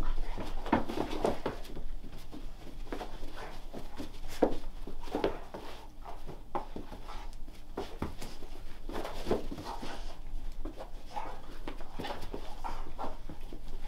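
Dogs playing together in a small room: an irregular run of short dog sounds and scuffles.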